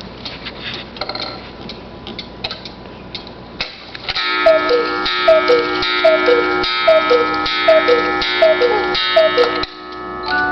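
Cuckoo clock ticking with some clicks, then, about four seconds in, striking the hour: a run of two-note cuckoo calls, high then low, under a second apart, over a steady ringing chord, stopping shortly before the end.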